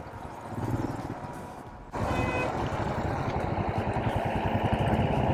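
Motorcycle engine running as the bike rides along, heard from the rider's seat. About two seconds in it suddenly gets louder and keeps building, the engine pulling harder as the bike speeds up.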